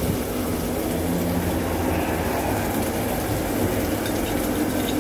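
Steady rumbling kitchen noise while a tomato-and-onion sauce cooks in a wok on the stove.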